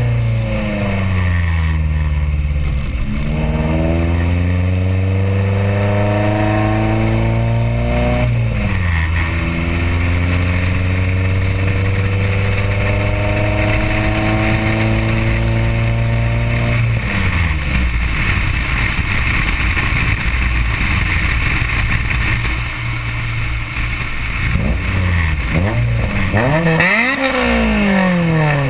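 Honda B16A four-cylinder VTEC engine heard through a side-exit exhaust (4-1 header, test pipe, resonator and SLP Loud Mouth muffler) while the CRX is driven. The exhaust note climbs as the car accelerates, drops sharply about eight seconds in as it shifts up, and climbs again. Some seventeen seconds in, the throttle comes off and the note settles to a lower drone, with a short rise and fall near the end.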